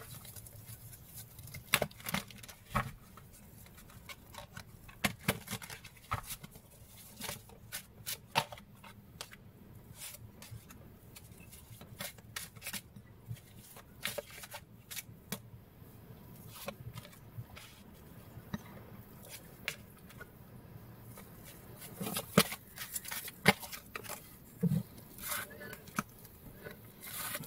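A deck of oracle cards being shuffled by hand and cards laid down, giving irregular soft snaps and clicks of card stock, busiest near the end.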